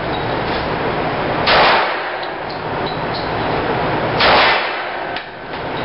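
Two handgun shots about three seconds apart, each with a short echoing tail.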